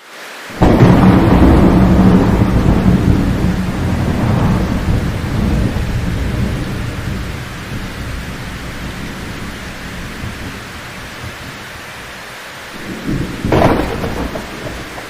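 Thunderstorm: steady rain with a loud rolling thunderclap about half a second in that slowly dies away over several seconds, and a second, sharper thunder crack near the end.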